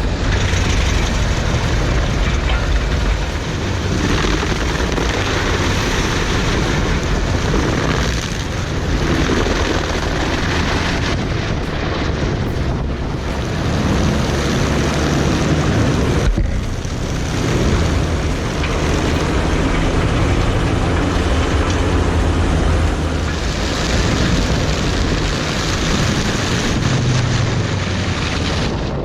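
Heavy machinery running steadily, a loud engine rumble with dense mechanical noise, briefly dipping a few times.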